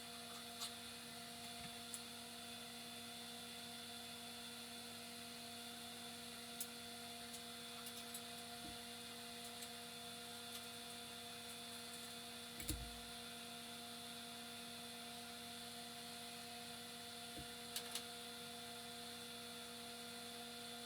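Faint steady electrical hum with a few soft clicks scattered through it and one low thump about 13 seconds in.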